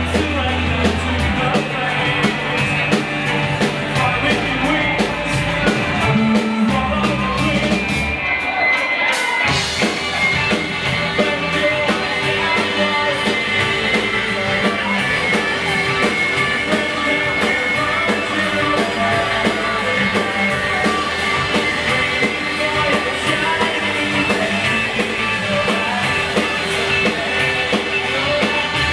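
A rock band playing live, with electric guitar, drum kit and singing. About nine seconds in, the low bass drops away briefly and the music moves into a new section.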